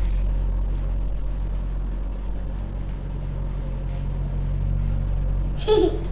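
A steady low hum. Near the end a small child's voice starts, played back through the Redmi 9i Sport smartphone's speaker.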